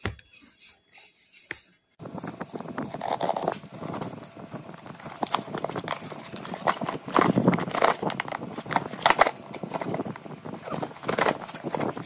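Cardboard shipping box being handled and opened by hand: a dense rustling, scraping and crackling of cardboard with many sharp taps and knocks. It starts about two seconds in, after a quieter stretch with a few clicks.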